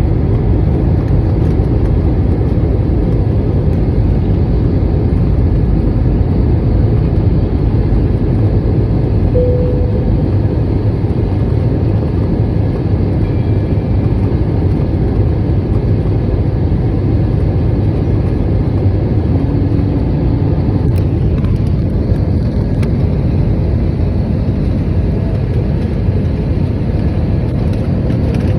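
Steady cabin noise of an airliner on its landing approach: engines and rushing air heard from inside the cabin, heaviest in the low end.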